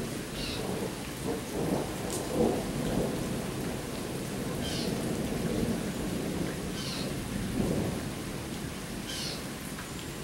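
Steady rain falling, with thunder rumbling underneath. The thunder swells about two seconds in and again around eight seconds in.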